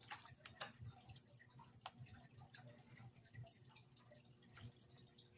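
Faint drips and small splashes of water as a plastic gold pan is worked in a tub of muddy water, with a few sharper little ticks.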